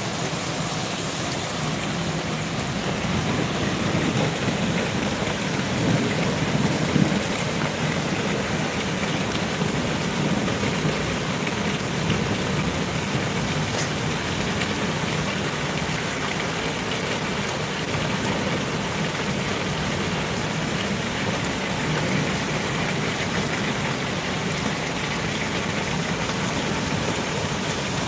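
Heavy rain falling steadily in a dense, even hiss, swelling a little about four to seven seconds in.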